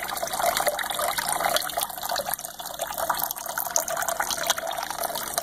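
Thin stream of water from a kitchen faucet running steadily and splashing into a clear container partly full of water.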